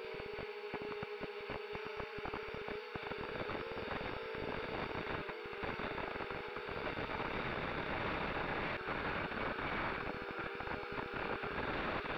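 ZMR250 quadcopter's electric motors and propellers, heard through the onboard camera: a steady whine with crackle at first, growing after about three seconds into a louder, even rushing noise as the quad flies low and fast.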